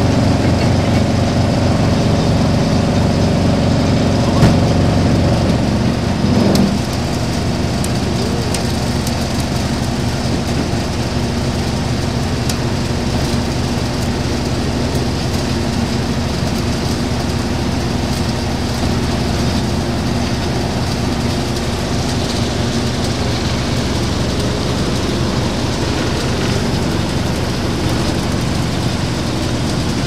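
A large wood crusher running, its engine and spiked rotor drum turning steadily above logs not yet being fed in. About six and a half seconds in there is a short clunk, and the machine's note drops slightly and stays steady after it.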